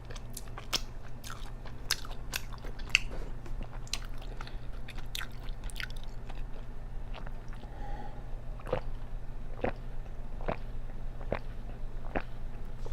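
A person chewing and crunching Hot Cheeto-breaded chicken and fried mozzarella. Sharp crunches come fast at first, then settle to about one a second in the second half.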